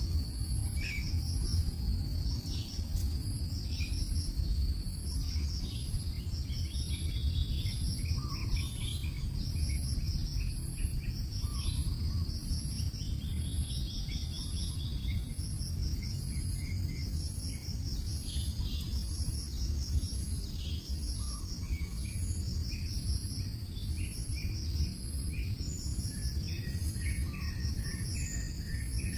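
Insects chirping: a very high chirp repeating about one and a half times a second over a continuous high trill, with short bird chirps coming and going. A steady low rumble runs underneath.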